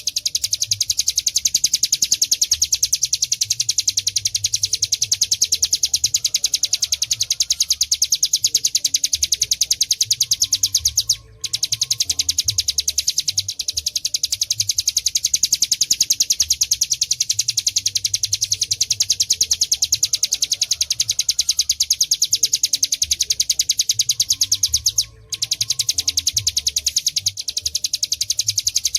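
Hill prinia (ciplek gunung) singing a rapid, unbroken trill of high, fast-repeated notes in the 'ngebren' style, pausing only twice, briefly.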